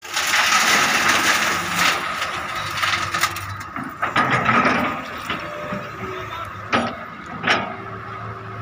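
Excavator's diesel engine running with a steady hydraulic whine while its bucket dumps gravel into a dump truck's steel bed, a loud rattling rush of stones for the first few seconds. Near the end come two sharp knocks about a second apart as the bucket comes down on the gravel pile.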